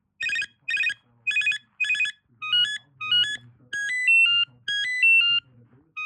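BT XD56 cordless phone playing its ringtones: about five short trilling bursts of electronic beeps, then from about two and a half seconds in a melody of single beeping notes stepping up and down in pitch.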